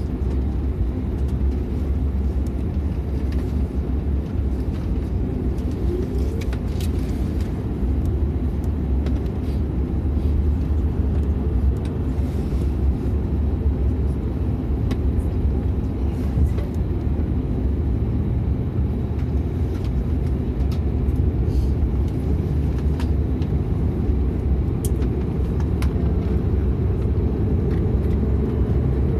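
Steady low rumble in the cabin of a Dash 8-400 as the Pratt & Whitney PW150A turboprop beside the window starts up. Its propeller begins turning partway through and is spinning by the end, and the sound grows slightly louder.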